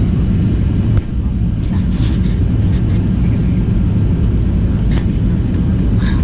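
Steady low roar inside the cabin of a Boeing 737-700 in flight, from its CFM56-7B engines and the air rushing past, with a single sharp click about a second in.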